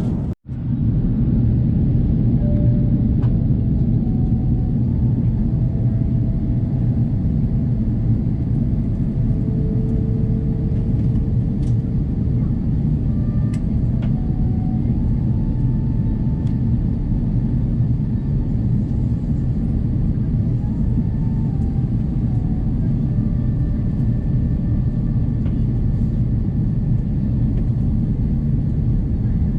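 Airbus A330 cabin noise: a steady, loud low rumble of the engines and airflow, with faint whining tones above it that shift a little in pitch. There is a brief gap in the sound about half a second in.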